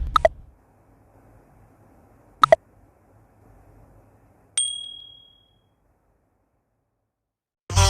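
Two sharp clicks a couple of seconds apart, then a single bright bell-like ding that rings out and fades over about a second. Music starts again right at the end.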